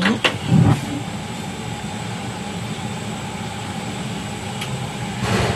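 Steady low rumble of a gas stove burner under a frying pan of heating oil. A few sharp knocks near the start as the wooden spatula and pan are handled, and a short rush of noise near the end.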